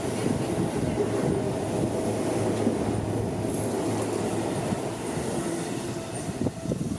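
Seibu Shinjuku Line electric train running past at close range, a steady rumble of wheels on rails that eases off near the end.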